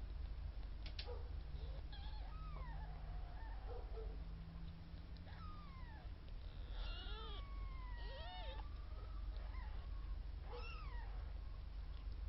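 Four-day-old newborn kittens mewing: several thin, high-pitched squeaky cries that slide down or rise and fall in pitch, the longest about seven seconds in.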